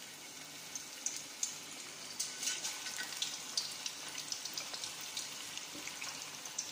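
Chicken necks deep-frying in hot oil: a steady sizzle with frequent sharp crackles and pops that get busier after about a second.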